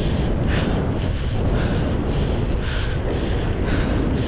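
Wind buffeting the microphone, a steady heavy rumble, with a soft hiss that comes back about once a second.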